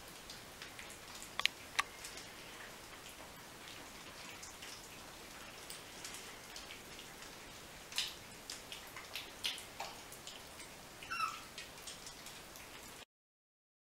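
Puppies eating dry kibble from a metal bowl: scattered crunching and clicks of kibble against the bowl, with one short high whimper from a puppy near the end.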